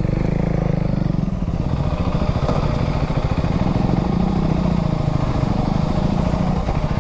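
2025 KTM Duke 390's single-cylinder engine running steadily under way, its firing pulse rapid and even.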